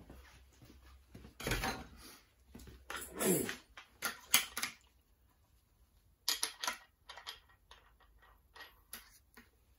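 Clicks and metallic clanks of an angle grinder being handled while its cutting disc is changed, the flange nut and disc taken off and a new disc fitted; the grinder is not running. The knocks come irregularly and are loudest in the first half.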